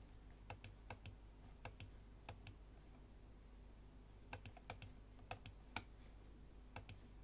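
Faint clicks of a computer keyboard and mouse, often in quick pairs and in small bunches with pauses between, over a low steady hum.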